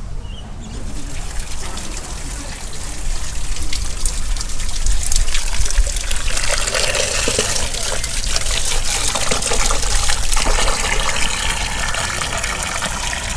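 Hot spring water pouring from an outlet pipe into a small wooden pail, splashing as it fills. It starts about a second in and grows louder a few seconds later.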